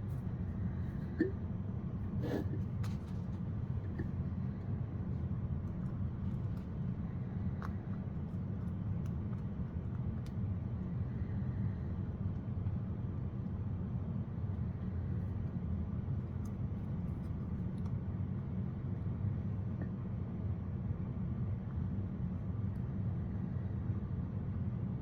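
A steady low rumble throughout, with a few light clicks and taps in the first few seconds.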